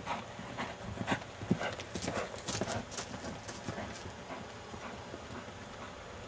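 Hoofbeats of a ridden Quarter Horse gelding on dry pasture ground as it goes by, an uneven run of dull thuds that is loudest about two to three seconds in and then fades away.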